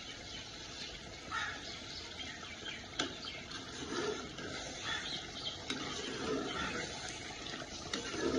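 Steel spoon stirring a thick, simmering chicken curry in a metal pot, with soft wet sloshing and scraping that comes and goes, and a light knock about three seconds in.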